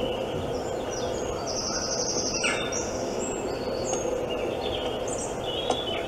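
Woodland birdsong played through a smartphone speaker: assorted short chirps and whistles, with a rapid trill about one and a half seconds in, over a steady hiss.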